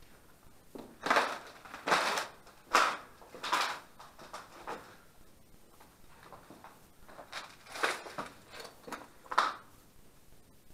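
Footsteps crunching over debris: about ten short crunches in two runs, with a pause between them.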